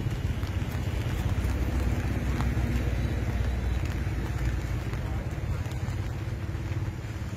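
Wind buffeting the microphone: a loud, low, gusting rumble that rises and falls.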